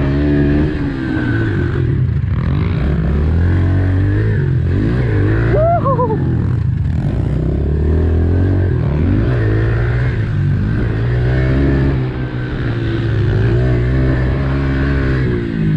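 Dirt bike engine revving up and down as it is ridden, the pitch climbing and dropping repeatedly. A higher-pitched rising whine cuts in briefly about six seconds in.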